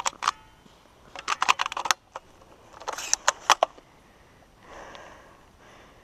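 Dry leaves and twigs crackling underfoot as someone moves and crouches in leaf litter, in three short bursts of sharp crackles, then a softer rustle near the end.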